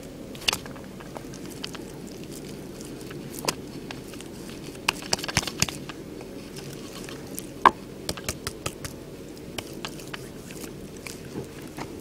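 Wet clay slop being scooped and packed by hand into a wooden brick mould on a tree stump: irregular wet slaps and knocks, a cluster about five seconds in and the sharpest one near eight seconds, over a steady low background noise.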